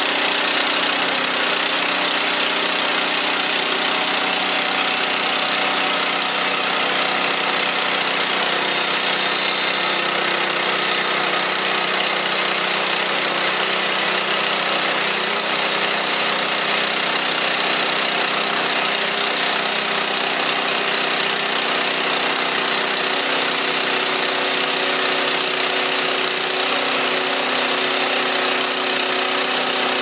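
Woodland Mills HM130 portable bandsaw mill running steadily, its gas engine driving the band blade through a shagbark hickory log as the head is pushed along the cut.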